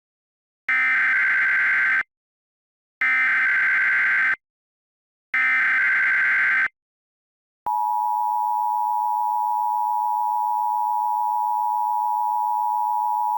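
Emergency Alert System tones. First come three identical screeching data bursts of the SAME header, each about a second and a half long with a second of silence between them. Then, about eight seconds in, the steady two-tone EAS attention signal starts and holds.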